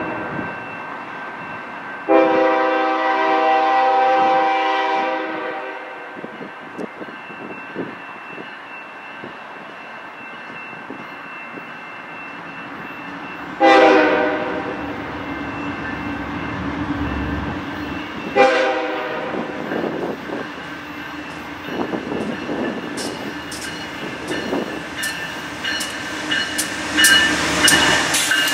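BNSF freight train's diesel locomotive horn sounding as the train approaches: one long blast a couple of seconds in, then two shorter blasts about 14 and 18 seconds in. Near the end the locomotives pass close by with a rising rumble and rapid clicking from the wheels.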